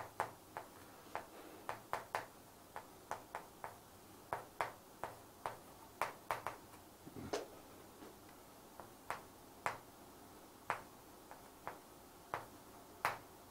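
Stick of chalk tapping and clicking against a chalkboard while an equation is written, in irregular sharp taps about two or three a second.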